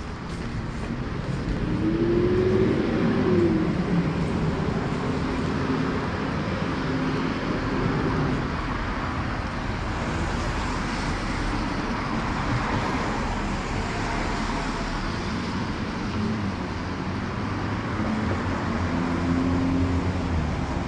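Steady traffic on a wet multi-lane boulevard, cars passing with tyre hiss off the wet road. A vehicle passes about two to three seconds in, its pitch rising and then falling, and another goes by near the end.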